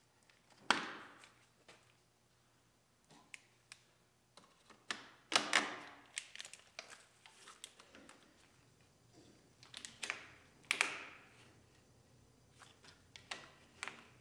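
Hands working a pickup truck's plastic-sheathed wiring harness and its clips: scattered light clicks and taps, with three louder scrapes about a second in, midway, and near eleven seconds.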